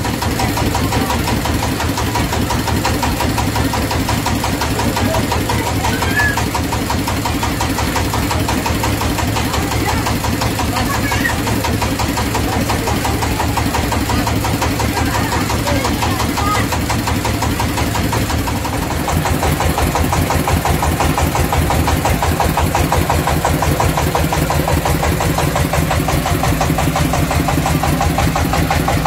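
Passenger boat's inboard engine idling with a steady, even chugging. About two-thirds of the way in its note changes and it runs a little louder. Passengers' voices murmur faintly underneath.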